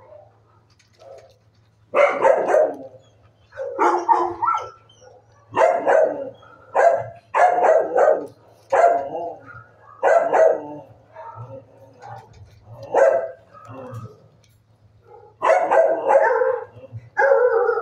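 Dogs barking in a shelter kennel block: about a dozen sharp barks and short bouts of barking, starting about two seconds in and coming irregularly, over a faint steady low hum.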